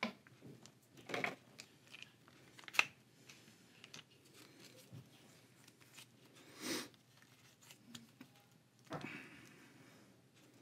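Plastic action-figure parts being handled, pried and fitted together with a hobby knife over a towel: scattered soft clicks, scrapes and rustles, with one sharp click about three seconds in. The pieces have been warmed in boiled water so the joints give.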